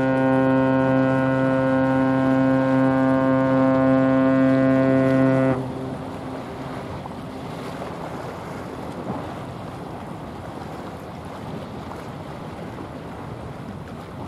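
A container ship's horn sounding one long, deep, steady blast that cuts off abruptly about five and a half seconds in. After that, wind and the rush of water.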